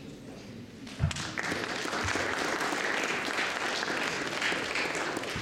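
A thump about a second in, then an audience clapping steadily in a hall.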